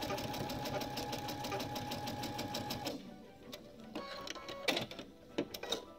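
Domestic sewing machine stitching a seam at speed, a fast even run of needle strokes over a steady motor whine, stopping about three seconds in. A few light clicks follow.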